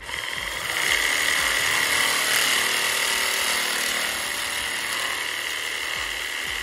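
Cordless drill running steadily as its bit bores a hole through a PVC pipe, with a high motor whine. The sound eases slightly about four seconds in.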